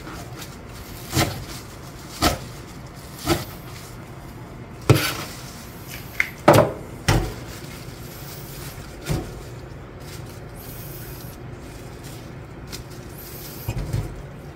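Kitchen knife chopping lettuce and perilla leaves on a plastic cutting board: single knocks about a second apart, a quick group of three near the middle. The knocks thin out and grow quieter after that.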